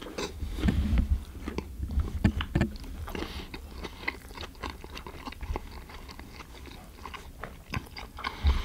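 A man chewing a mouthful of hamburger close to the microphone: irregular small clicks and soft thumps of chewing, strongest in the first three seconds.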